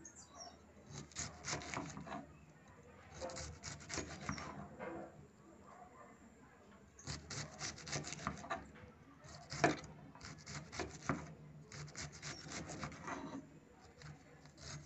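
Kitchen knife shredding a hard head of cabbage: rapid cutting strokes in runs of one to two seconds with short pauses between, and one sharper crack about two-thirds of the way through.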